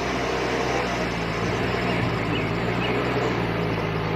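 Steady engine-like running sound: a constant low hum under an even hiss, with no change in pitch or level.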